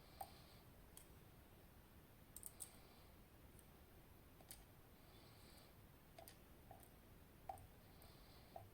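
Faint, sparse small clicks of metal lock parts and tools being handled while a TESA T80 cylinder is taken apart and its pins removed, with near silence between them.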